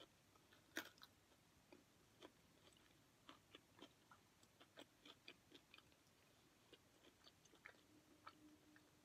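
Faint chewing of a chicken sandwich: soft, irregular mouth clicks and smacks, with one louder click about a second in.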